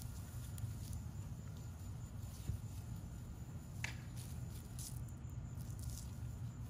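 Faint pattering and rustling of dogs' paws moving about on grass over a steady low rumble, with a couple of brief ticks about four and five seconds in.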